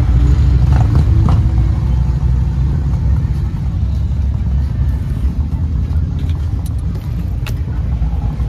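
Steady low rumble of motor vehicle engines and road noise, with a few faint clicks.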